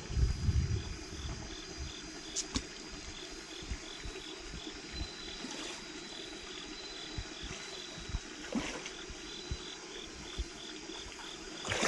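Insects chirping in an even pulsing rhythm, about two or three pulses a second, with a steady high trill above, over the faint running of a shallow creek; a few soft knocks now and then.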